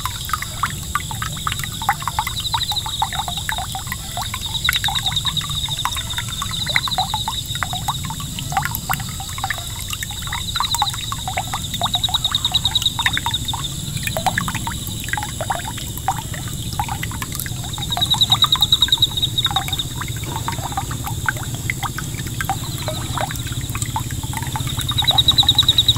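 Water from a small 5-volt submersible solar pump's jet splashing and trickling steadily back onto a pond surface. Short, high, rapid trills recur several times over it.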